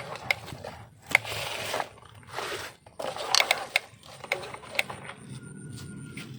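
Plastic toy trucks being handled: a string of sharp clicks and knocks, with short rattling scrapes about a second in and again a little later.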